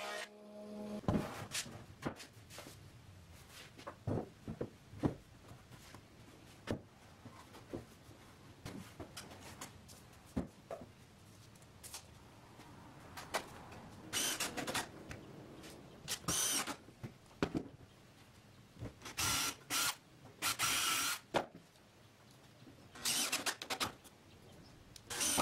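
Cordless drill running in several short bursts of whine, each about half a second to a second long, from about halfway on. Before that, scattered knocks and taps of wooden parts being handled.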